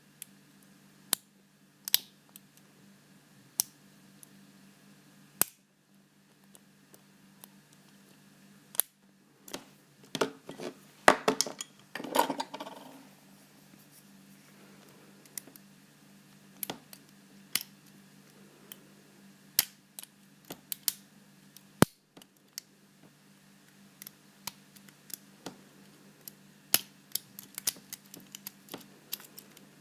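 Lock pick and tension wrench working the pin tumblers of a Paclock PL410PRO 7-pin padlock under light tension: sparse sharp metal clicks, with a busier stretch of rapid clicking and scraping around the middle.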